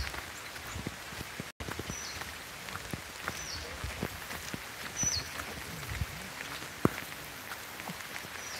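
Light rain falling on vegetation, a steady hiss with scattered drops ticking close by. A bird repeats a short, high, down-slurred call a few times, about a second or two apart.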